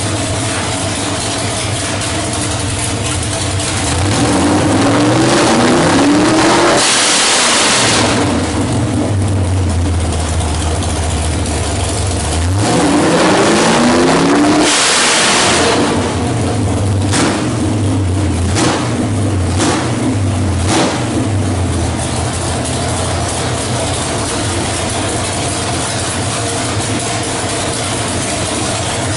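A 383 cubic-inch stroker small-block Chevrolet V8 on an engine dyno, idling, then revved up twice to high rpm and let back down. A few quick throttle blips follow before it settles back to idle. The engine is being run under high vacuum as a smoke check for oil smoke after dyno testing.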